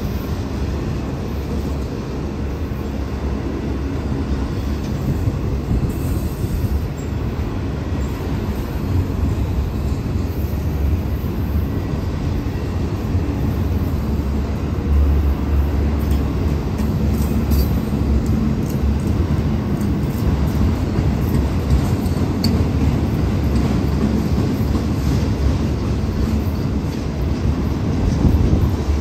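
Autorack freight cars rolling past: a steady low rumble of steel wheels on rail, with a few faint clicks.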